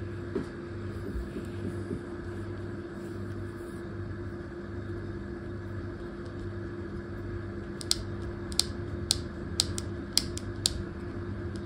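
A steady machine hum with a low note pulsing about twice a second. From about eight seconds in, a run of about seven sharp clicks, roughly two a second.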